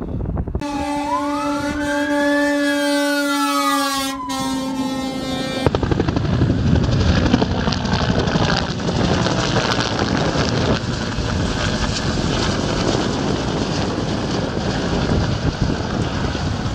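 An emergency siren wails for about five seconds, one tone sweeping up and back down over a steady droning tone, then cuts off abruptly. Then a firefighting helicopter flies overhead, its rotor and engine noise steady for the rest.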